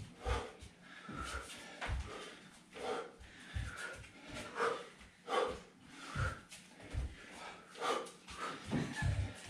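Hard, rhythmic breaths out from a person doing fast knee-up front kicks, a little under one a second, with bare feet thudding on a wooden parquet floor as each kick lands.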